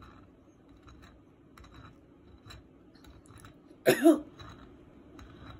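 A person coughs once, a short two-part cough about four seconds in. Around it are faint scattered scrapes and ticks of a butter knife spreading butter on toaster waffles on a plate.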